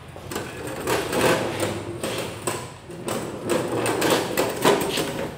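Homemade welded steel cart with bearings for wheels rolling across a concrete floor under a heavy transformer battery charger, with a continuous clattering rattle of the metal wheels and frame.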